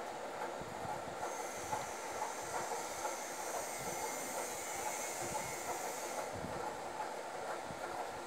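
Steady background noise, an even rumble and hiss with a few faint steady tones, unchanging throughout.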